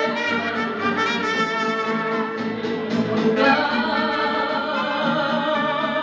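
Live mariachi band playing: two trumpets carry the melody over strummed acoustic guitars, the brass growing brighter about three and a half seconds in.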